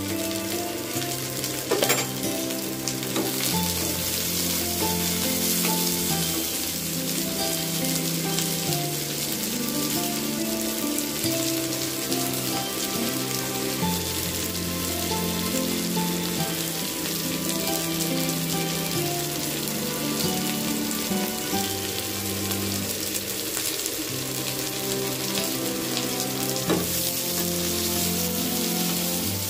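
Sliced onions and garlic cloves sizzling steadily in hot oil in a metal kadai, stirred with a wooden spatula, over soft background music of slow held notes. A sharp knock about two seconds in and another near the end.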